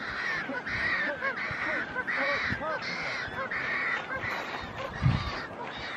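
Magellanic penguin braying: a donkey-like run of about seven harsh honking calls, each about half a second long, one after another, tailing off about four seconds in. A low bump comes near the end.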